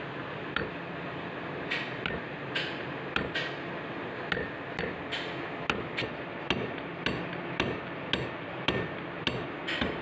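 Hammer tapping on car A/C compressor parts: about eighteen sharp strikes at an uneven pace, some ringing briefly, over a steady background noise.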